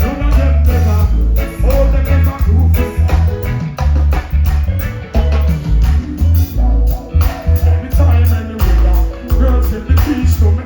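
Live reggae band music, with heavy bass notes pulsing on and off in a steady rhythm under a melody line.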